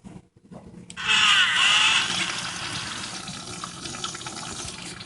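Automatic toilet flush going off about a second in: a sudden loud rush of water with swirling gurgles that eases after a second or so into a steady lower flow of refilling water.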